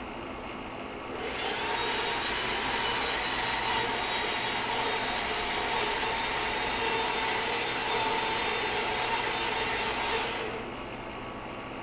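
Small electric motor of a homemade prop minigun running with a steady whine for about nine seconds, starting about a second in and cutting off near the end.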